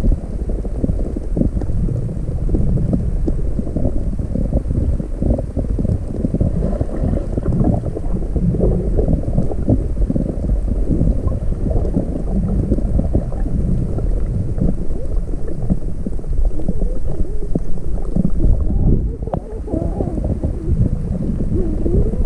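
Low, muffled rumble of water moving around a camera recording underwater, steady throughout with a short dip a little over halfway through.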